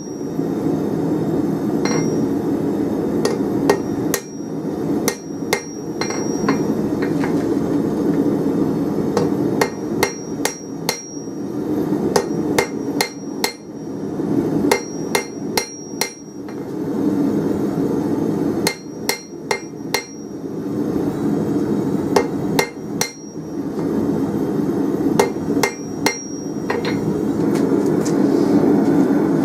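Hand hammer striking red-hot 24 mm round steel bar on an anvil, in runs of several blows with short pauses, each blow ringing briefly off the anvil as the end is drawn to a point. A steady low rumble runs underneath.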